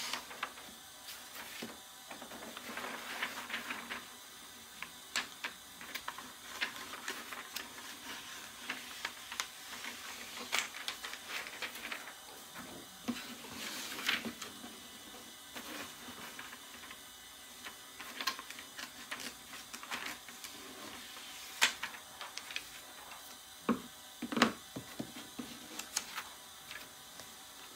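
Small scissors snipping through a sheet of DTF transfer film, irregular snips with the plastic film crinkling and rustling as it is handled between cuts.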